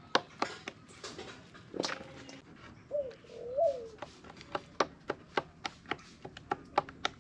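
Kitchen knife chopping raw chicken on a wooden cutting board: a run of sharp knocks, about three a second in the second half. A bird calls briefly in the middle with a short rising-and-falling note.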